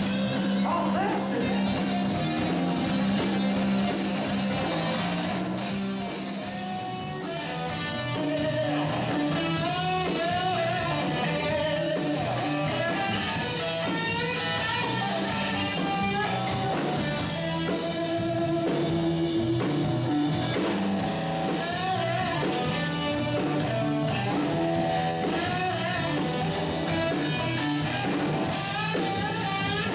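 Live rock band playing with electric guitars, bass guitar and drum kit, a bending lead melody line over a steady bass line; it drops back briefly about six seconds in, then comes back in full.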